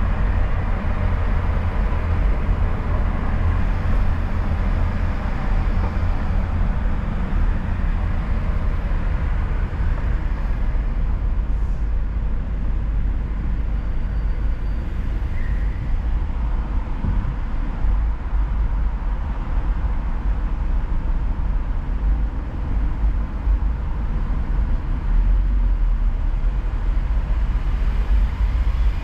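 A car driving: steady road and engine rumble with a heavy low end and no sharp bangs.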